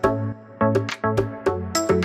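Background music with a steady beat: short plucked-sounding notes over a repeating bass line.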